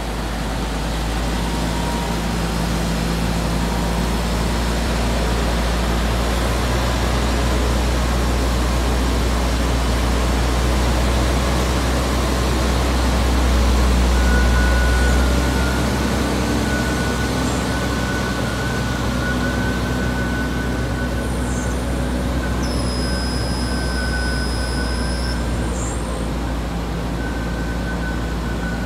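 Diesel engine of a Manitex 2892SX boom-truck crane running steadily with a deep rumble while the crane holds its load aloft. A faint thin tone comes and goes over it in the second half.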